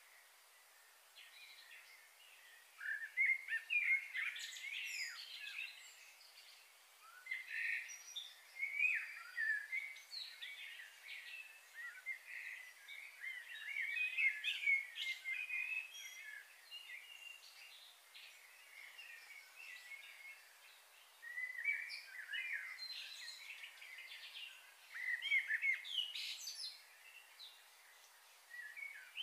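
Birds chirping and calling, in several bursts of quick overlapping chirps with quieter gaps between.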